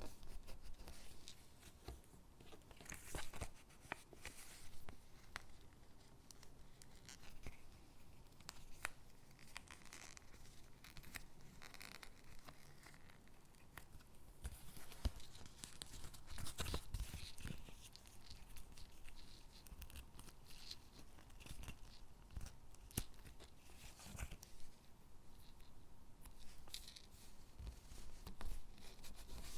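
Stickers being peeled from their backing sheet and pressed onto paper gingerbread cutouts: irregular soft peeling and paper rustling, with small clicks and taps.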